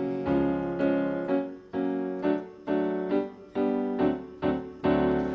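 Piano playing a run of repeated chords, about two a second, each struck and then dying away before the next.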